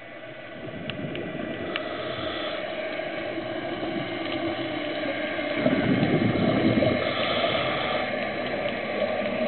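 Scuba diver's exhaled regulator bubbles gurgling, heard underwater over a steady water rush. A louder bubbling rush comes about six seconds in.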